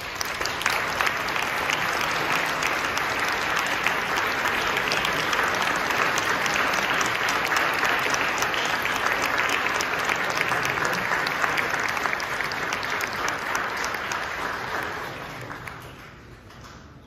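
Audience applauding, starting at once, holding steady, then dying away over the last couple of seconds as the horn soloist and conductor take their places.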